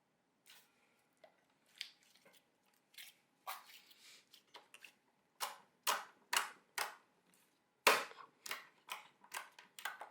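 Slime being pressed and worked by hand, trapped air popping out in sharp clicks and snaps. They come sparsely at first, then about two a second from the middle on, the loudest a little before the end.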